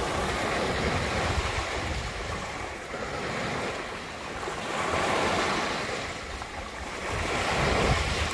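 Small sea waves breaking and washing up over sand and low rocks at the water's edge, swelling and easing in several surges, the loudest near the end.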